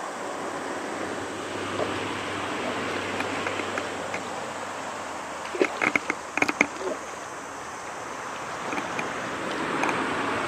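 Water swishing and lapping, with a quick run of sharp clicks and knocks about six seconds in.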